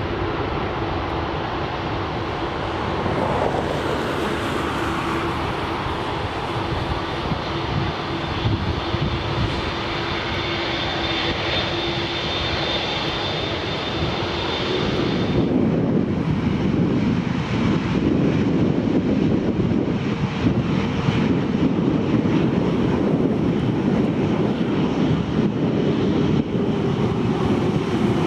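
Jet airliner engines at takeoff power as it rolls down the runway and climbs away, a steady rumble with a high whine near the end of the run. Partway through the sound switches suddenly to a louder, steadier low rumble.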